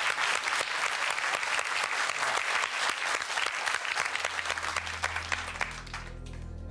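Studio audience applauding, with dense clapping that dies away about six seconds in. A low sustained music sting comes in under it near the end.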